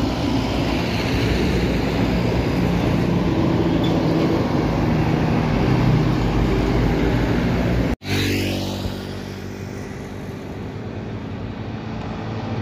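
Diesel engines of a coach bus and heavy cargo trucks passing close by on a highway, a steady heavy engine drone. It breaks off abruptly about eight seconds in. After that the road is quieter, and a distant bus engine grows louder as it approaches.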